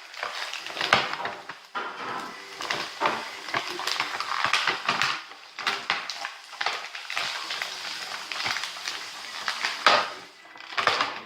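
Action-figure packaging being ripped open by hand: a continuous run of crackling, tearing and sharp snaps of cardboard and plastic.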